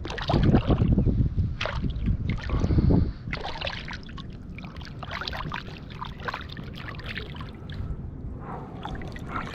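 A hooked pompano thrashing and splashing at the water's surface as it is landed, loudest for about the first three seconds. Then lighter, scattered splashes as a hand reaches in and grabs the fish.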